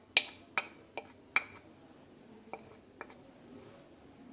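Spoon tapping against a bowl: four sharp taps about half a second apart, then two fainter taps.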